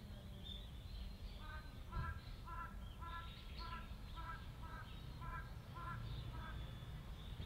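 Birds calling in the open air: a run of about ten short, evenly spaced calls, about two a second, among thin high chirps, all faint over a low steady background rumble.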